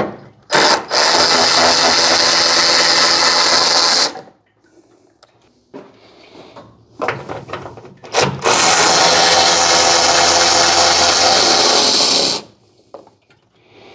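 Cordless electric ratchet running in two long bursts of about three to four seconds each, backing out the bolts that hold the top of the fan shroud. Between the bursts there are a few light knocks of the tool being moved.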